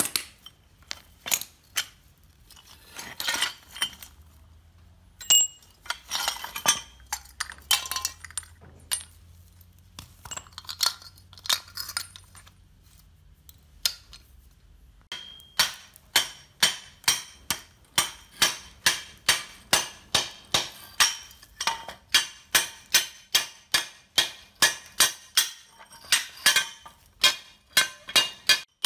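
Loose metal parts clinking as they are handled and set down on a concrete floor, then about halfway through a steady run of hammer blows, about two a second, knocking hardened concrete off the mixer's steel stand.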